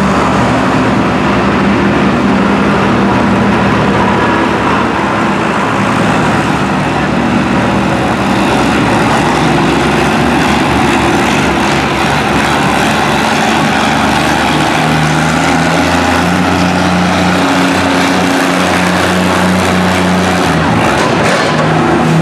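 Oliver tractor engine running hard and steady under full load as it drags a weight-transfer sled in an antique tractor pull, its note shifting slightly about two-thirds of the way through.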